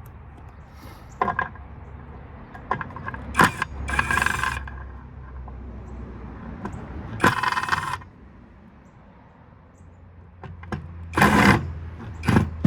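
Metal parts and hand tools clinking, rattling and scraping as electrical equipment is taken apart: scattered sharp clicks and a few short rattling bursts, the longest lasting under a second, over a low steady hum.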